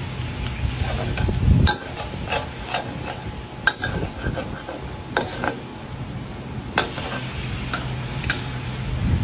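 Metal spatula scraping and knocking against a metal wok while stir-frying pieces of textured soy protein, with irregular sharp clinks and a light sizzle. A steady low hum runs underneath.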